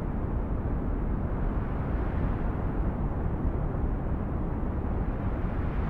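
Steady low rumbling noise, with no tones, beat or strikes.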